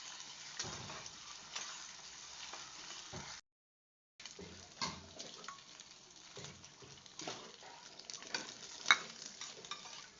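Food sizzling in a pan while a spoon stirs it, with scattered scrapes and clinks against the pan and one sharper clink near the end. The sound cuts out for under a second a little after three seconds in.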